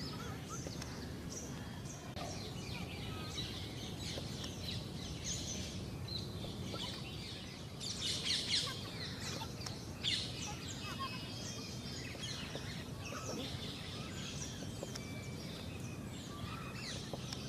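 Outdoor ambience: a steady low background noise with scattered bird chirps, and a brief burst of people laughing and chattering about halfway through.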